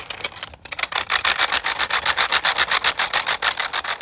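The 'quietest' wheel on an extra-large 3D-printed 12-in-1 fidget toy being rolled, giving a fast, even run of plastic clicks, about ten a second, starting under a second in.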